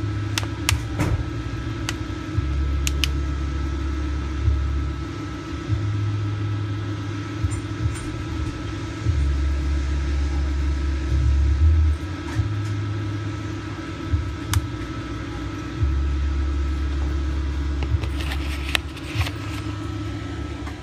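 A steady low mechanical hum like an idling engine, stepping up and down in level every few seconds, under a constant higher tone. Scattered sharp clicks and taps, with a short cluster of them near the end.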